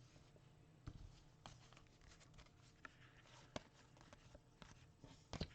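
Near silence, with a few faint clicks and rustles from trading cards being handled and flipped.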